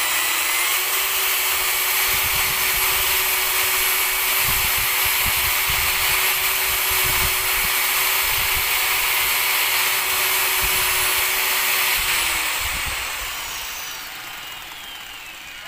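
Corded rotary car polisher running at a steady speed while a wet stiff brush is held against its spinning foam pad to scrub it clean, with irregular knocking as the brush catches the pad. About twelve seconds in it is switched off and its whine falls away as it spins down.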